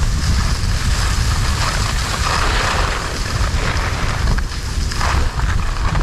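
Wind buffeting the action camera's microphone during a downhill ski run, a heavy steady rumble, with skis hissing and scraping over packed snow, swelling about two seconds in and again near the end.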